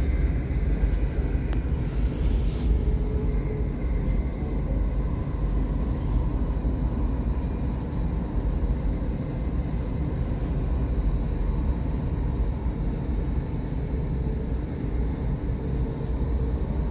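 Steady low rumble of a Thameslink electric train running at speed, heard from inside the carriage. There is a brief hiss about two seconds in.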